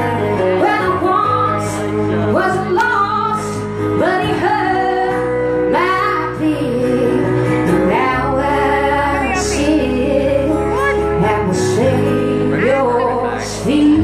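A woman singing live with acoustic guitar accompaniment.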